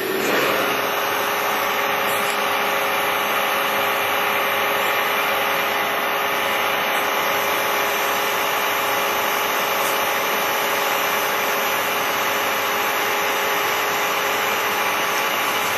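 Westlake Series 1 CNC knee mill running a program: its 3 HP inverter-driven spindle makes a steady whir with several fine whining tones.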